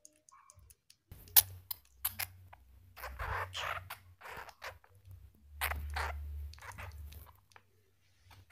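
Flying squirrel making a string of short, hissy, unpitched sounds at irregular intervals, starting about a second in, the longest lasting under a second.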